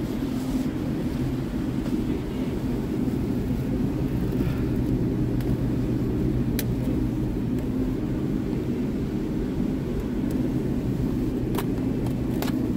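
Steady low hum of supermarket refrigerated display cases, with a few light clicks near the end.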